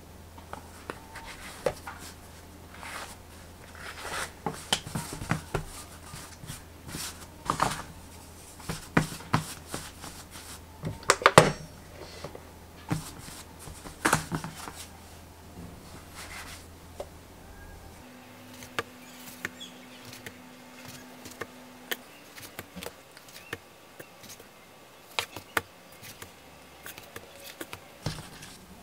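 Hands and a plastic bench scraper working bread dough on a floured counter: the scraper cutting the dough into pieces, then the pieces being pressed, rolled and shaped, heard as irregular soft taps, scrapes and pats. Near the end the rounded pieces are set on a metal baking sheet with light knocks. A low steady hum runs underneath and stops about two-thirds of the way through.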